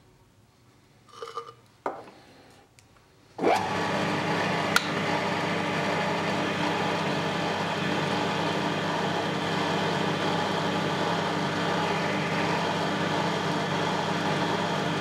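Small hobby metal lathe starting up about three and a half seconds in and then running steadily, its chuck spinning a small steel rod against a center drill held in the tailstock. A few faint handling sounds come before the start, and there is one sharp click just after it.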